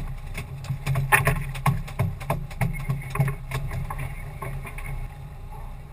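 Irregular knocks and taps on a small open fishing boat during snoek handlining, over a low steady rumble; the knocks thin out after about three and a half seconds.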